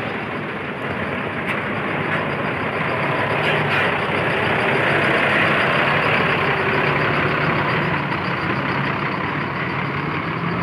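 A large bus passing: engine and tyre noise that swells to its loudest about halfway through and eases off toward the end.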